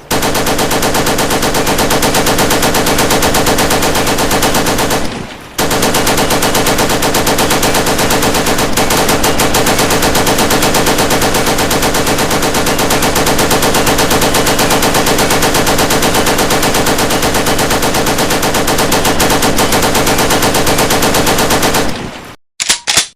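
Rapid automatic gunfire in long unbroken bursts, the shots coming too fast to count. It breaks off briefly about five seconds in and stops near the end.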